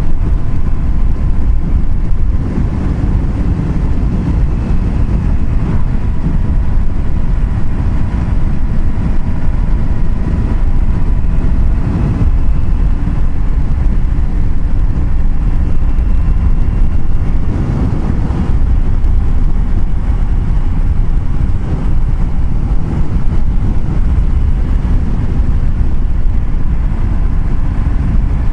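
Steady road noise of a vehicle travelling at speed on the highway: a loud low rumble of tyres and engine with a faint steady whine running through it.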